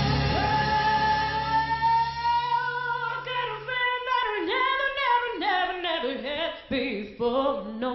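A woman singing into a microphone: one long held note that slowly rises, then a string of shorter ornamented phrases. The low backing accompaniment drops out about three seconds in, leaving the voice on its own.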